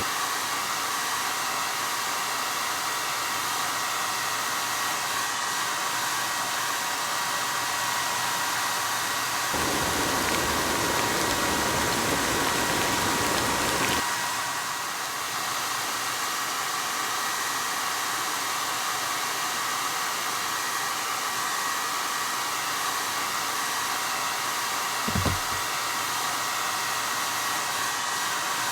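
Handheld hair dryer running steadily, a rushing blow of air with a constant motor whine. About a third of the way in the rush gets fuller and a little louder for a few seconds, then settles back. There is a short low thump near the end.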